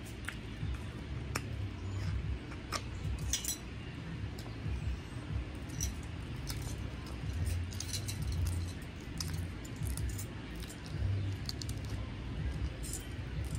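Stacked metal bangles and bracelets jingling and clinking in scattered short clicks as hands peel cooked shrimp, over a steady low rumble.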